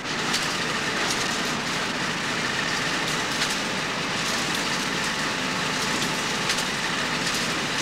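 Automatic bread-slicing machine running: a steady, even mechanical noise with faint ticks, starting abruptly.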